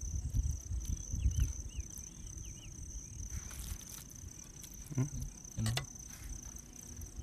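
A cricket trilling on one steady high note, over low rumbling noise, with two soft knocks about five and six seconds in.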